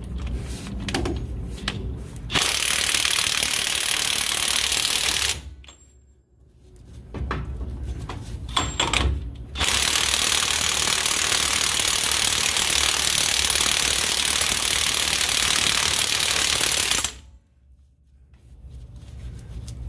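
DeWalt XR cordless impact wrench hammering on a Dana 44 differential's pinion nut in two long bursts, about three seconds and then about seven and a half seconds. The nut is being run down to take the remaining end play out of the pinion bearings before the crush sleeve is crushed for preload.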